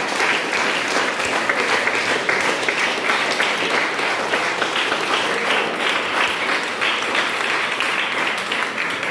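A roomful of girls applauding together, many hands clapping at once in a steady, sustained patter.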